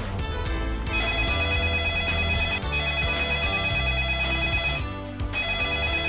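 A phone ringing with a steady electronic ring, broken by short pauses, over background music with a low bass line.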